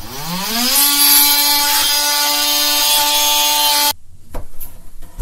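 Cordless drill spinning up with a rising whine, then running at a steady pitch for about three seconds as it drives a screw into the camper's ceiling panel, stopping abruptly. A couple of light knocks follow near the end.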